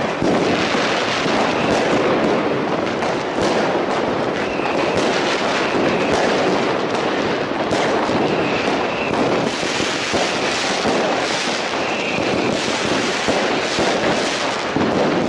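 Dense fireworks barrage, many bangs and crackles running into one another without a break. Brief high tones sound now and then over the crackle.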